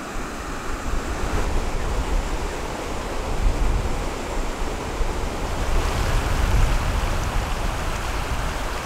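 River rapids rushing over boulders: a steady, unbroken rush of water with a deep rumble underneath.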